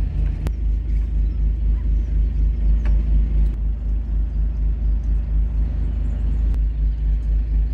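Small passenger ferry's engine running with a steady low throb, with a sharp click about half a second in.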